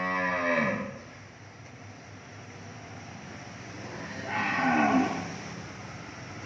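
Cattle mooing twice, once at the start and again about four seconds later. Each moo ends with a downward slide in pitch.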